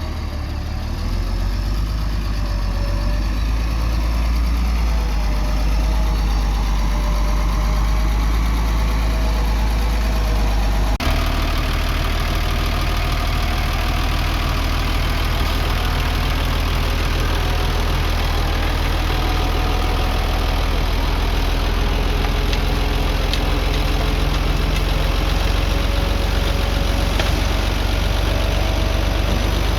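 Diesel engine of a construction machine running steadily under work, with a sharp click and an abrupt change in the engine note about eleven seconds in.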